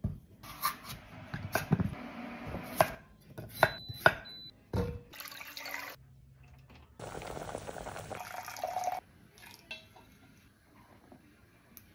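Kabocha squash and carrot pieces knocking on a wooden board and clattering into a stainless steel pot, with hard knocks and a brief metallic ring. Then water rushes for about two seconds and stops suddenly, followed by a spoon clinking faintly as it stirs in a glass measuring cup.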